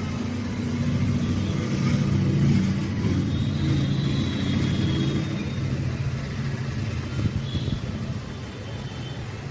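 A motor vehicle's engine running close by: a steady low rumble that swells about two seconds in and then eases off.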